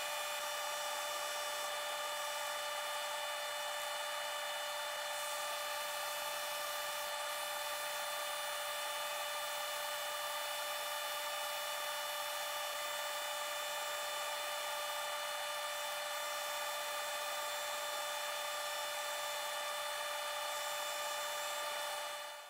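Drill press running steadily with a constant whine as a large bit bores a hole into a pallet-wood block. The sound fades out near the end.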